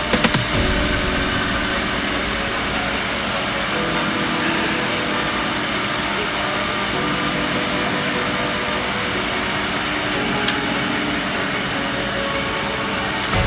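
SDC-1200-3 three-head CNC mortising machine running, a steady whir of motors and cutting noise with no real change in level.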